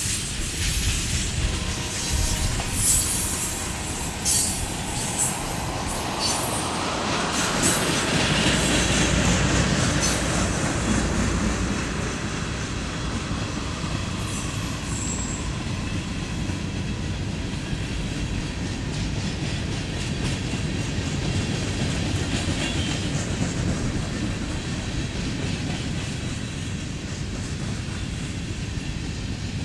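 Freight cars (tank cars and covered hoppers) rolling past on steel wheels, a steady rumble of wheels on rail with sharp clicks in the first few seconds and a louder swell about eight to eleven seconds in.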